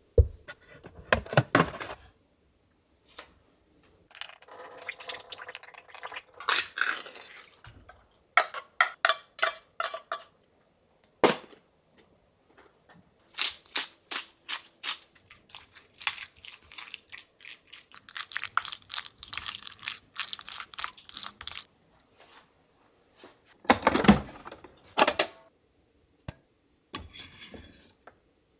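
Kitchen handling sounds: cans and packages knocking and rustling as they are taken off a pantry shelf, scattered clicks and clatter of dishes, and a louder burst about 24 seconds in as a rice cooker lid is opened.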